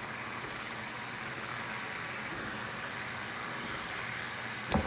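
Several fidget spinners spinning together on a tabletop, their ball bearings making a steady whir. A single sharp knock near the end as a spinner is set down on the table.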